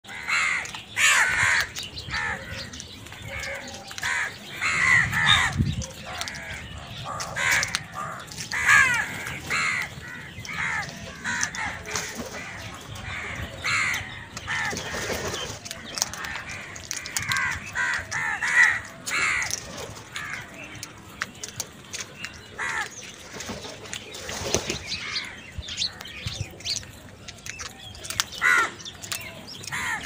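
Several house crows cawing, harsh calls coming about every second and often overlapping, from a flock crowding around food.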